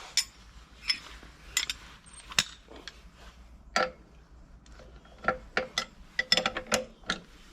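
Sharp metal clicks and clinks of a breaker bar and socket being fitted onto the plough's bolts and worked to finish tightening them. The clicks are irregular, with a quick run of them near the end.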